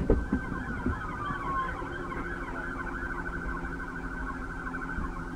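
Police siren sounding a fast, rapidly repeating yelp, with a short knock or two at the start and steady vehicle noise underneath.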